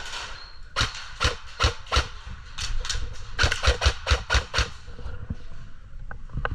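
Airsoft gunfire in a close-quarters indoor arena: sharp single shots and BBs cracking against hard surfaces. There are four spaced cracks in the first two seconds, then a quicker string of about ten over the next two seconds.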